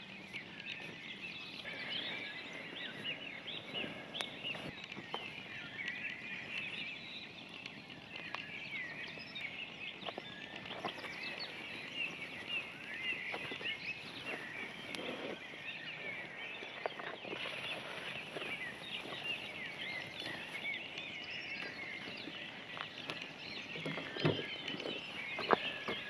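Dawn chorus: many songbirds singing at once in a dense, continuous chirping, with scattered clicks and knocks throughout and two louder knocks near the end.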